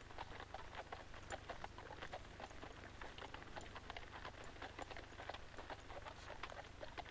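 Horse's hooves clopping on hard, stony ground in many irregular knocks, over a steady low hum.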